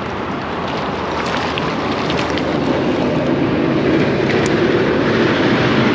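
Steady rushing noise of wind and moving water, growing a little louder toward the end.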